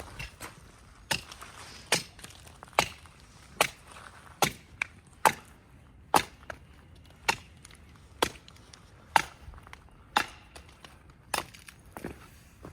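An axe chopping into a tree trunk with sharp, evenly paced strikes, about one a second, about fourteen in all. It is cutting a girdle ring through the bark.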